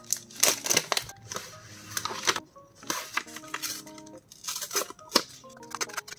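Paper sticker sheets and journal pages being handled, rustling and crinkling in several short clusters of crackles, over quiet background music.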